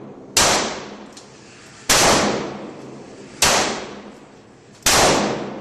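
Four shots from a Ruger Mark II .22 LR semi-automatic pistol, fired at a slow even pace about a second and a half apart, each ringing out for about a second.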